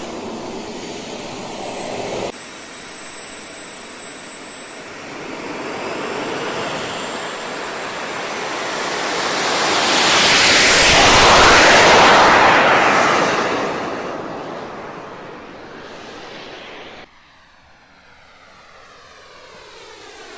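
Jet aircraft flying past: a rushing engine noise with a high whine swells to a peak about halfway through, then fades away. The sound changes abruptly twice, near the start and near the end.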